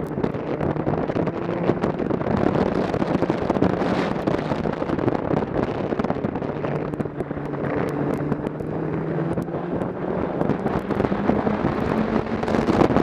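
Snowmobile engine running at a steady cruising speed, its pitch shifting a little, with wind buffeting the microphone.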